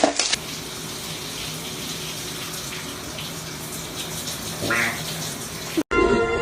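Water running steadily, like a tap or bath filling, with a brief high-pitched sound near the end.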